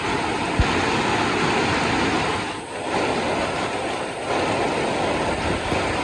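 Heavy rain pouring steadily as a dense, even hiss, easing briefly twice, with one short low thump just over half a second in.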